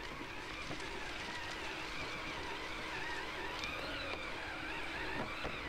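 Electric motor and gear whine of a Vanquish VS4-10 RC rock crawler, rising and falling in pitch as the throttle changes, with a few scattered ticks.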